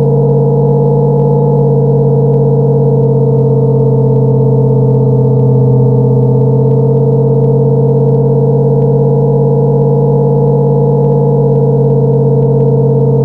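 Synthetic V8 engine sound from a homemade sound racer: a spinning eight-cylinder patterned cardboard disc read by an infrared photoreflector, amplified and played through a speaker into a bottle and paper tube for a straight-piped exhaust note. It holds a steady pitch at constant revs, like a car cruising.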